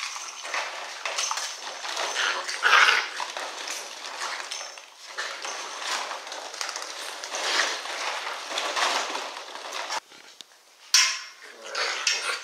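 Plastic ball-pit balls clattering and rattling against each other and a plastic dog bed as a Czechoslovakian wolfdog puppy rummages through them. About ten seconds in the sound cuts off and gives way to puppies play-fighting, with one loud burst.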